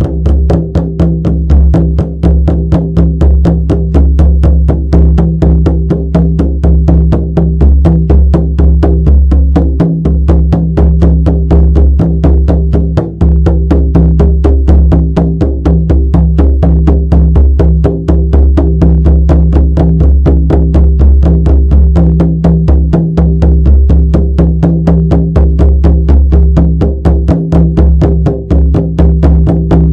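Shamanic frame drum beaten in a steady, even rhythm of about four strokes a second, each stroke ringing into a deep, sustained boom.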